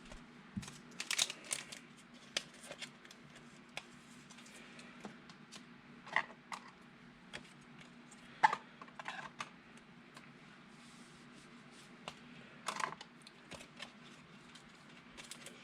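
Trading cards being handled and sorted on a table: irregular light clicks and rustles, a few sharper taps, over a faint steady low hum.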